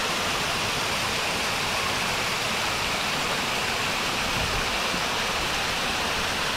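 Small rock waterfall pouring into a shallow pool: a steady rush of falling, splashing water.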